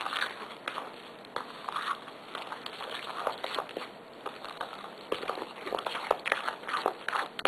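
A fork stirring thick oat-and-flour muffin batter in a stainless steel mixing bowl: wet mixing sounds with quick, irregular clicks and scrapes of the fork against the metal.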